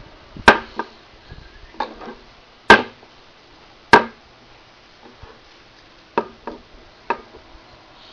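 Toy building blocks knocking together and against a hard surface as they are handled: about nine sharp, irregular clacks, the three loudest within the first four seconds.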